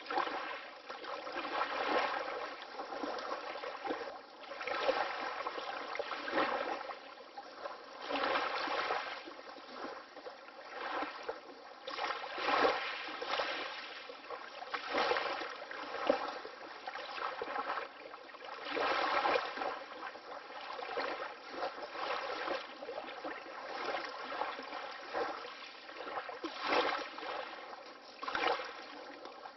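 Water lapping in small waves, each wash swelling and fading every few seconds, with a brief splash now and then.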